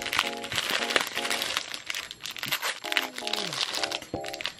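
Thin clear plastic bag crinkling as it is pulled open and a stack of stickers is slid out, with many small crackles throughout.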